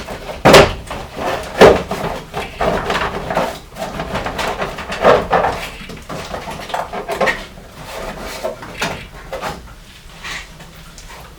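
Irregular knocks, clicks and rattles of hands working at engine-bay parts while prying at a wiring harness connector. The two loudest knocks come about half a second and a second and a half in, and the sounds thin out near the end.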